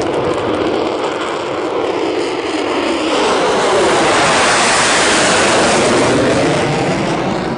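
Concorde's four Olympus 593 turbojets as it flies low overhead: loud jet noise that swells about three seconds in to its loudest as the aircraft passes, then cuts off suddenly.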